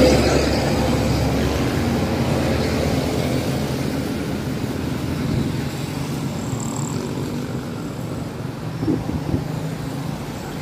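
Road traffic: a passenger coach that has just passed close by, its engine rumble loudest at the start and fading away over the first few seconds, leaving a steady low hum of distant traffic on the wet road.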